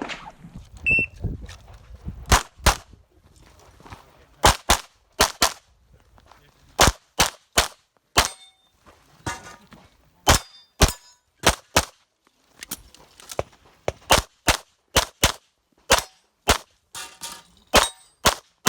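A 9mm competition pistol firing a stage course, about 25 to 30 sharp shots in quick pairs and short strings with brief pauses between them, beginning about two seconds in. A faint metallic ring follows a few of the shots.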